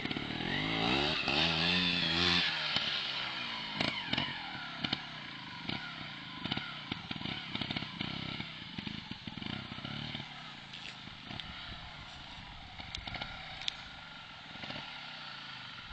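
Sherco 290 trials motorcycle engine revving hard for the first couple of seconds, then running fainter at lower revs as the bike climbs away, with scattered sharp clicks and knocks throughout.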